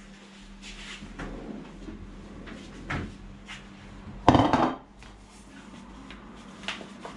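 Kitchen handling sounds: a few light clicks and knocks, then a plastic mixing bowl set down on a table with a loud knock about four seconds in. A faint steady hum sits underneath.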